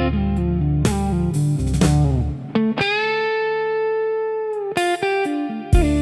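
Slow blues instrumental. A guitar plays single plucked notes over a bass line, and about three seconds in it holds one long note for about two seconds, bent up at the start and falling away at the end.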